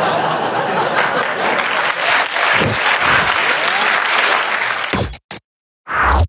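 Audience applauding, a dense, even clapping that cuts off suddenly about five seconds in. A short loud burst of sound follows near the end.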